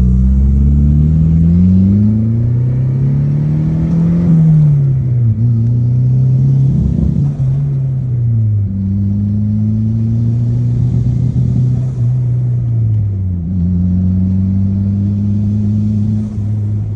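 Turbocharged Honda H22A four-cylinder in a Civic, driving: the engine note climbs for about four seconds under acceleration, then drops at a gear change and runs steadier, dropping again twice more at further shifts.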